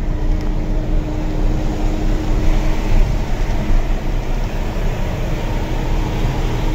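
Diesel truck running at road speed, heard from inside the cab: a steady engine and road hum with a steady low tone that drops away near the end.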